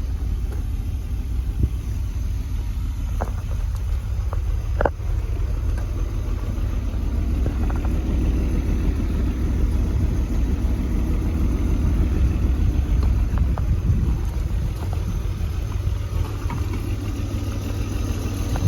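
BMW E34 520i's 2.0-litre straight-six idling steadily shortly after a cold start, with a couple of faint clicks about three and five seconds in.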